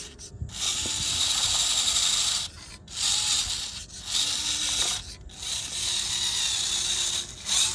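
Small RC model tractor's electric drive motor and gearbox whirring as it drives, in about four short runs that stop and start again.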